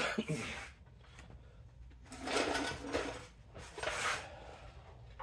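Hand-tool work on a truck's rear coil-spring suspension: a sharp knock at the start, then two short rasping bursts about two and four seconds in.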